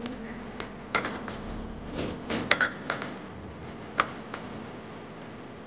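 Steel ladle clinking and scraping against the side of a steel pot while stirring thin batter: a string of irregular light clicks, the sharpest about four seconds in.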